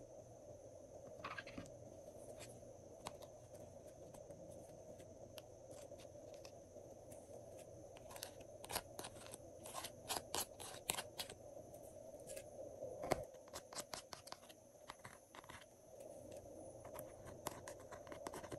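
Metal spatula scraping and scooping makeup out of the plastic pans of a makeup palette: a run of small scratchy clicks and scrapes, thickest about eight to eleven seconds in and again around thirteen to fifteen seconds, over a faint steady hum.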